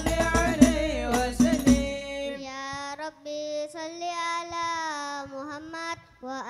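Sholawat chant: voices singing over beating hadroh frame drums. About two seconds in the drums stop and a single voice carries on alone in a long, ornamented line.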